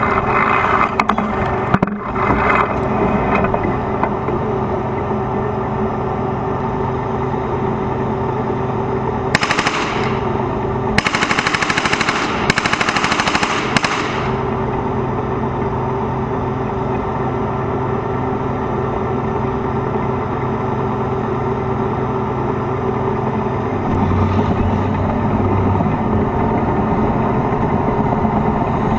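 Two bursts of rapid machine-gun fire, a short one about nine seconds in and a longer one of about three seconds right after, over the steady running of a T-72 tank's diesel engine.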